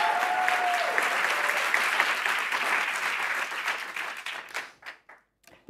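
Audience applauding, a dense steady clapping that thins out about four seconds in and dies away, ending with a few scattered last claps.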